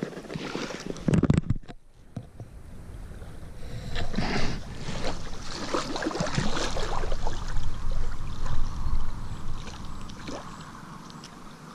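Rustling and handling noise from hands and sleeves as a small crucian carp is unhooked, over a steady low wind rumble on the microphone. A loud knock sounds about a second in.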